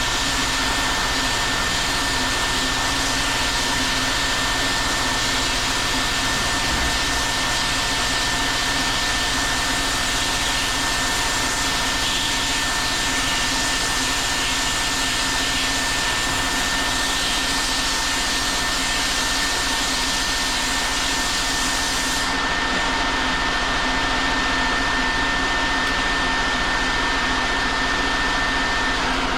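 Steady rushing noise of a running blower-type motor, unbroken and even, with a thin steady whine on top that stops just before the end.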